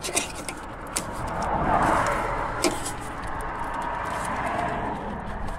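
A passing vehicle's noise swells to a peak about two seconds in, then settles into a steady traffic hum. A few light clicks in the first three seconds come from a plastic antenna-wire connector being worked loose by hand.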